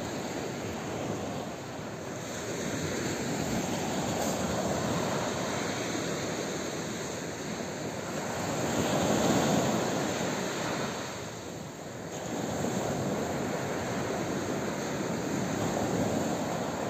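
Small waves breaking and washing up a sandy beach: a steady rushing that swells and eases in slow surges, loudest about nine seconds in.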